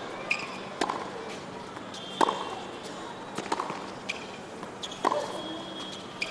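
Tennis ball pocks, sharp and short, the loudest about every second and a half with softer ones between, over a steady low crowd murmur.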